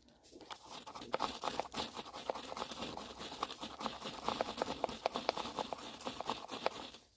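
A knife spine scraped again and again down a ferrocerium fire-starter rod, throwing sparks onto a pile of wood shavings to catch a fire. It is a fast, unbroken run of rasping strikes that starts just after the beginning and stops just before the end.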